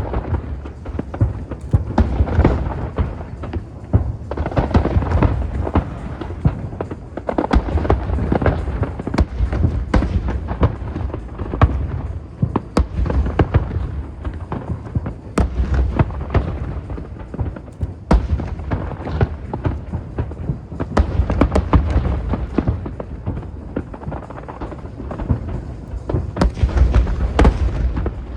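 Aerial fireworks bursting in rapid, continuous succession: many sharp cracks over a constant low rumble of booms.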